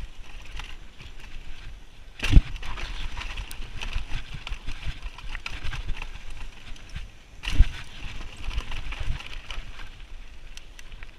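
Bike riding over rough ground: a steady rushing, rattling noise broken by two sharp knocks, about two and a half and seven and a half seconds in.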